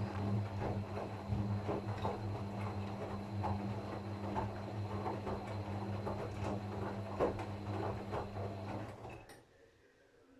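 Gorenje washing machine on its short wash programme: the drum motor hums steadily while the load tumbles with irregular soft knocks and swishes. Motor and drum stop about nine seconds in, as the drum pauses between turns.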